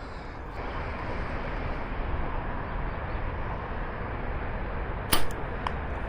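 Steady outdoor background hiss, then about five seconds in the single sharp snap of a compound bow being shot, followed by a faint tick about half a second later.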